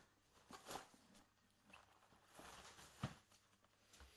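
Faint rustling and soft knocks as hands open and handle a package of model-kit parts, with one sharper click about three seconds in.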